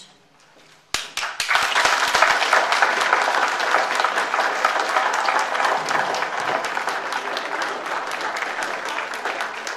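Audience applauding, starting suddenly about a second in and fading a little toward the end.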